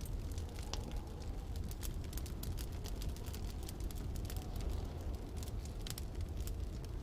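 Wood fire crackling, with many quick sharp pops scattered throughout, over a steady low rumble of storm wind.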